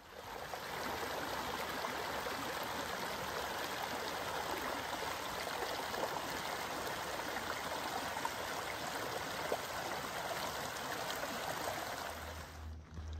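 Steady rushing of a stream or creek. It comes up just after the start and fades out near the end.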